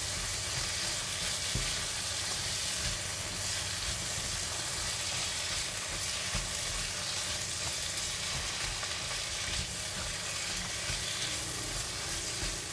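Green beans frying in a non-stick wok with their seasoning, a steady sizzle, while a silicone spatula stirs and tosses them, with a few light scrapes and taps against the pan.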